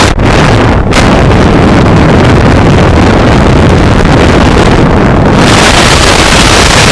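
Loud wind buffeting an action camera's microphone during a parachute descent, a steady rushing noise that turns brighter and hissier about five seconds in.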